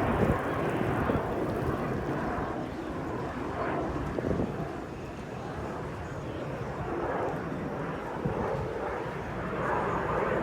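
Jet aircraft engine noise, a rushing that swells and eases and grows louder again near the end.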